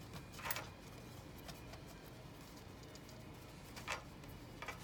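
A few short, quiet clicks and taps from small parts of a disassembled pin-tumbler lock being handled: pins and plug parts picked up and set down, one about half a second in, then more near the end.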